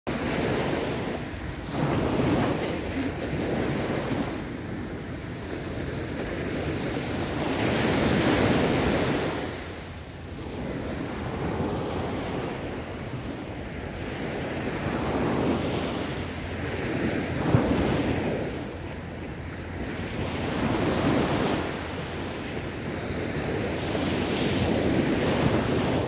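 Small waves breaking and washing up on a sandy beach, the surf swelling and falling back every few seconds, with wind on the microphone.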